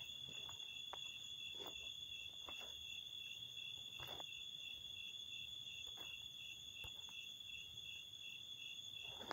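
Crickets chirping: a steady high trill with a second, evenly pulsing chirp beneath it, and a few faint clicks.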